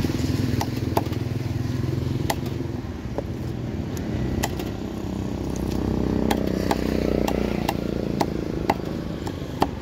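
Cleaver chopping fish on a wooden block: sharp knocks at irregular intervals, about a dozen in all, over the steady low rumble of an engine running, which grows louder about six seconds in.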